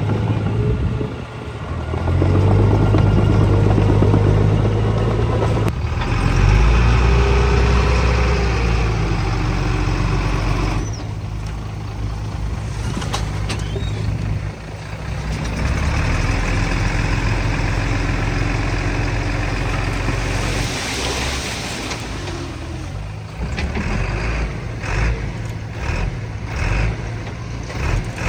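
Diesel engines of heavy earthmoving machinery working, revving up and easing off several times under changing load. A hissing rush comes about two-thirds of the way through, and a run of clanks and knocks follows near the end.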